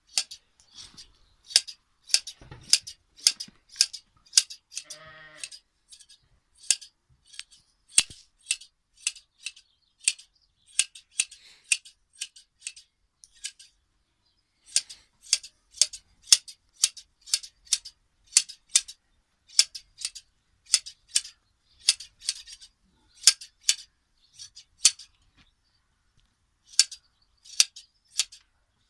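Hand blade shears snipping through a sheep's fleece in a steady run of sharp clips, about two a second, with a few short pauses. A sheep bleats once about five seconds in.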